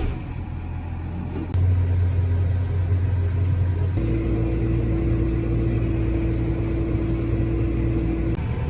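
An engine running steadily just after starting, stepping up in speed about a second and a half in and again about four seconds in, with a steady whine joining at the second step and stopping shortly before the end.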